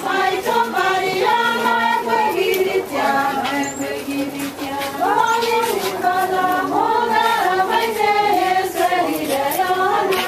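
A group of voices, women's among them, singing together in slow, long-held notes.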